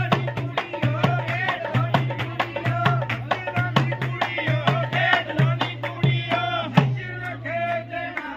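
Punjabi wedding folk song: a voice singing over a steady hand-drum beat, each stroke carrying a low booming ring.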